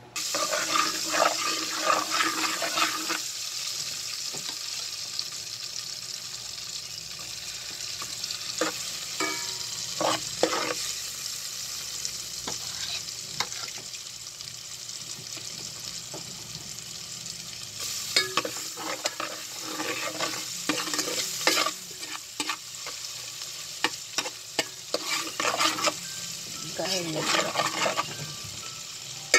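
Oil sizzling steadily in an aluminium pot as chopped aromatics fry, with several spells of a utensil scraping and stirring against the pot.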